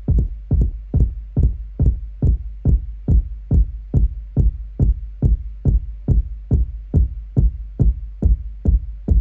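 Layered electronic kick drum, two kick samples stacked and shaped with a low-pass filter, looping on its own at about two and a half hits a second. Each hit is a deep bass thump with a short click on top.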